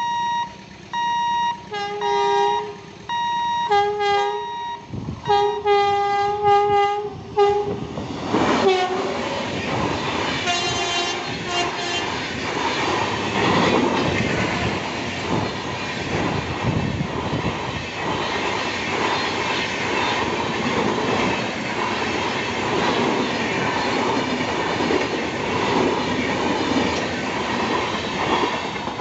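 An electronic warning beeper at a level crossing sounds about once a second. Then a WAP-7 electric locomotive's horn gives a series of short blasts, and the express's coaches rush past with wheels clattering over the rail joints, loud and steady for the rest of the time.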